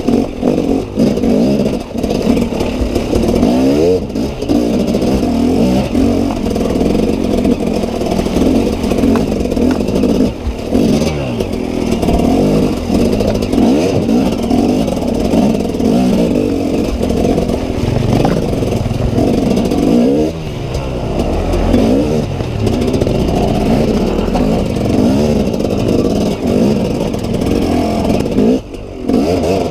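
Orange KTM enduro dirt bike's engine revving up and down over and over under a helmet camera as it claws over rocks, with clattering from the bike on the stones.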